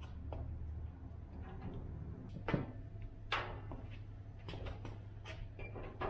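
Light clicks and knocks of hands working the rotisserie motor and its plug at the side of a pellet grill, over a steady low hum. One sharper knock comes about two and a half seconds in and another a second later, then a quick run of small clicks near the end.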